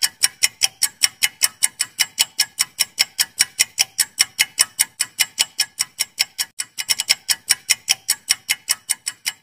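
Ticking-clock sound effect of a quiz countdown timer: sharp, even ticks at about three a second, with a few quicker ticks about seven seconds in. It cuts off abruptly near the end.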